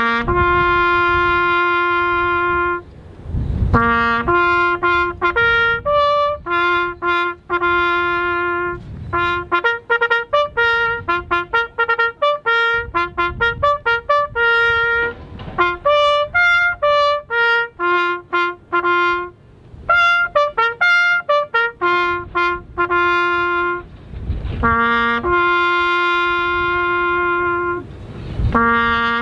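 A solo trumpet playing a bugle-style call on a few notes: long held notes at the start and near the end, with quicker, shorter notes in between.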